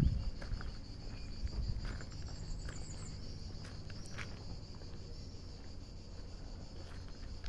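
A steady high-pitched insect chorus in woodland. A low rumble on the microphone is loudest at the start, and there are a few soft clicks.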